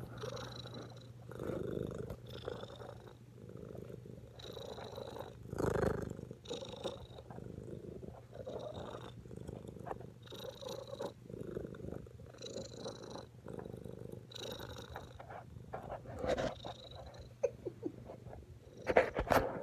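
Domestic cat purring right against the microphone: a steady low rumble that swells and fades with each breath, every second or two. A few brief knocks come near the end.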